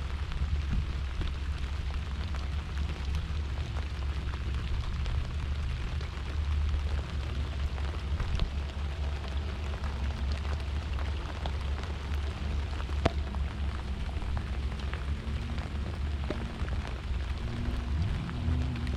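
Rain falling steadily, with scattered sharp drop ticks, over a continuous low wind rumble on the microphone.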